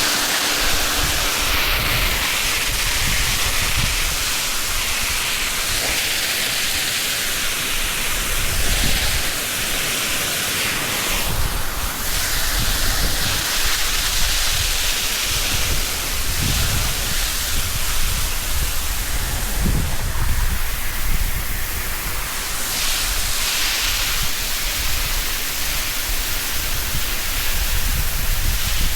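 High-pressure water from a wash-down hose spraying onto the floor of a dairy milking shed: a steady hissing rush with uneven low rumbling beneath it.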